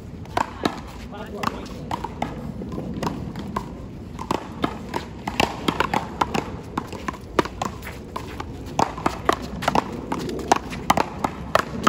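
One-wall paddleball rally: the rubber ball cracks off the players' paddles and the concrete wall in a string of sharp hits, several a second in places.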